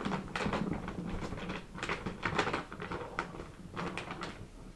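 Plastic bag crinkling and rustling in irregular crackles as it is squeezed and tipped to pour liquorice root powder out of it.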